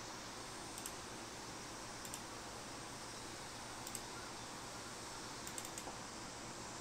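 Sparse light clicks at a computer desk: single clicks about one, two and four seconds in, then a quick run of three, over a faint steady hiss.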